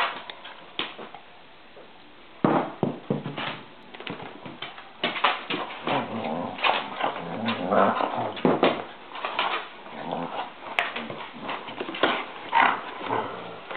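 A German Shepherd and a small dog play-fighting: dog growls and whines mixed with scuffling and rustling on the couch, starting about two and a half seconds in.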